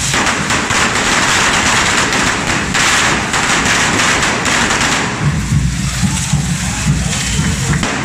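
Many carretilles, hand-held firework fountains, hissing and crackling together with sharp pops. About five seconds in the hiss thins and a steady drum beat comes forward.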